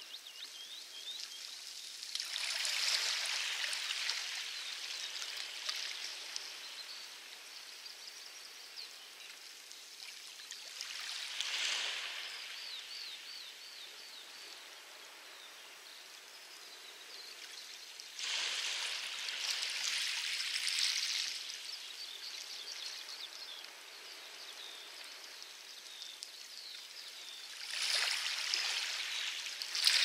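Small waves washing onto a pebble beach: four louder surges about eight seconds apart, with a softer wash of water between them.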